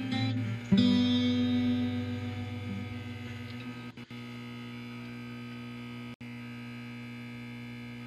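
Closing music: a guitar chord struck about a second in, ringing and slowly fading, then a steady electrical hum that carries on by itself and briefly drops out twice.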